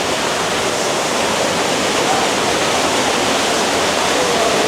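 Waterfall on a mountain creek rushing through a narrow rock gorge, loud and steady.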